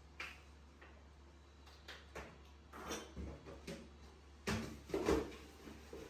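Macaque eating avocado: scattered soft clicks and smacks of chewing and handling the fruit, with two louder knocks about half a second apart near the end, over a low steady hum.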